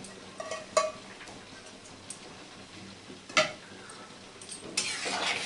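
A utensil knocking against a metal kadai of boiling water with broccoli florets in it: a few sharp knocks, the loudest after about three seconds, then a longer scrape near the end, over a faint steady hiss from the pan.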